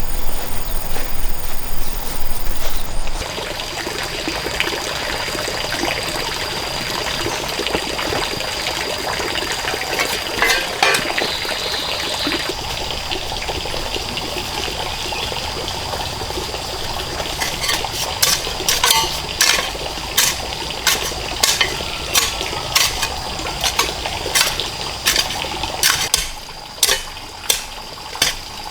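Steady running water with a thin high tone over it, and a louder low rumble for the first few seconds. From about halfway through, a run of sharp knocks or taps sounds, a little more than one a second.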